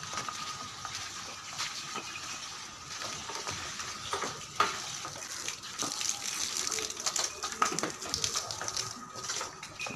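Water gushing steadily from a hose pipe, a continuous rushing hiss with a few sharp knocks.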